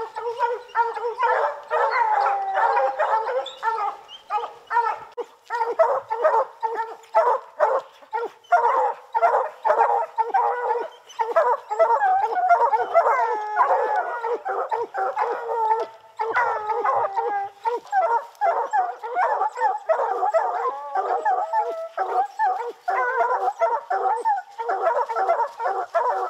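A pack of bear hounds barking treed at a black bear up a tree: a continuous, overlapping chorus of quick chop barks with longer drawn-out bawls mixed in.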